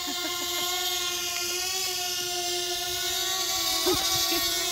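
DJI Mavic quadcopter drone hovering overhead, its propellers giving a steady high whine with a brief wobble in pitch about four seconds in.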